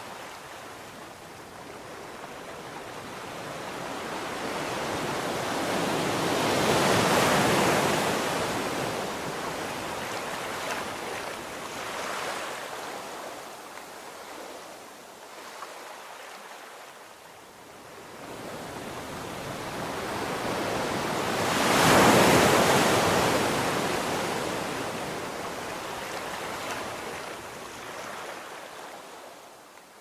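Ocean surf breaking on a sandy beach. Two waves swell up and crash, the first about a quarter of the way in and the louder one about three quarters through, each ebbing back to a softer wash between.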